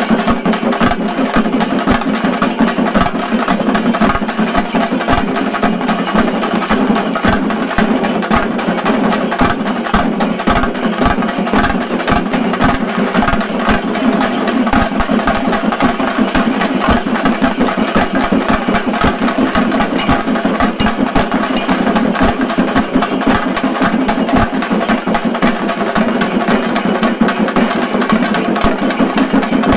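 Shinkari melam ensemble of chenda drums beating a fast, dense rhythm, loud and unbroken.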